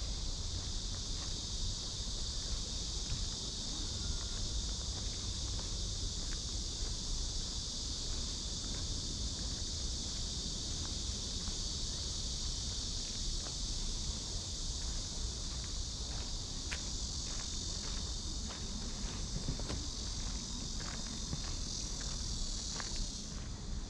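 Cicadas buzzing in a dense, unbroken chorus. Footsteps on a path are heard under it, more often in the last third.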